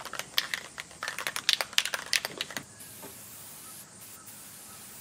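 Aerosol spray-paint can: a couple of seconds of quick, irregular clicks and rattles, then a steady spray hiss starting about two and a half seconds in.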